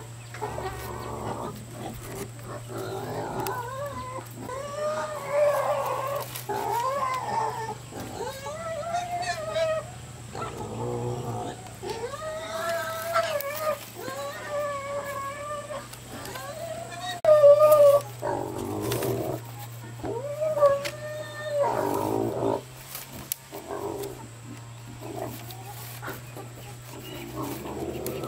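An animal calling over and over, a long run of short arching cries, some louder than others. Bamboo strips click and rustle underneath.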